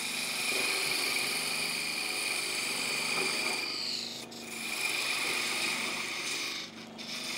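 Turning tool cutting into a spinning birch blank on a wood lathe: a steady hiss of the cut with a high ringing tone, as shavings come off. The cut breaks off briefly about four seconds in and again near the end.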